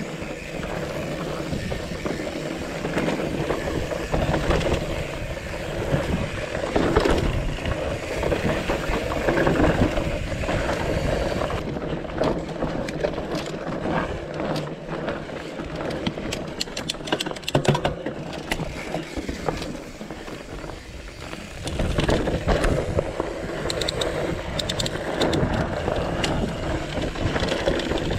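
Mountain bike ridden over rocky singletrack: tyres rolling over dirt and rock, with the bike rattling and clicking. The clicks and rattles come thick and fast partway through, over a stretch of rock slabs.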